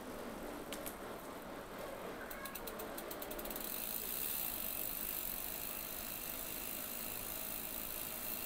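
Bicycle freewheel ticking in a quick, even run of clicks while the rider coasts. After that a steady high hiss takes over.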